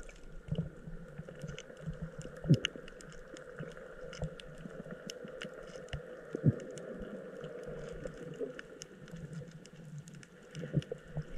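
Underwater sound picked up by a submerged camera: a steady crackle of scattered sharp clicks over a low hum, with two dull thumps a few seconds apart.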